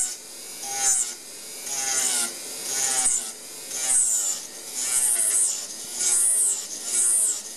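Dental milling machine running a roughing bur against a cast metal coping, rasping through the metal in short passes about once a second. The motor's whine shifts in pitch as the bur bites and eases off. This is the roughing stage of milling the attachment.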